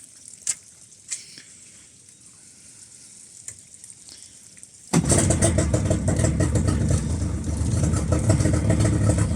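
A few sharp clicks, then about five seconds in a Yamaha 30 hp outboard motor starts suddenly and runs steadily on flushing water. The owner judges its carburettors to be running a little rich and in need of adjustment.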